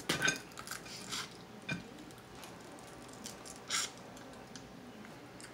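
Crab being eaten by hand: scattered short sucking noises and crackles of crab shell being picked apart, the loudest a little under four seconds in.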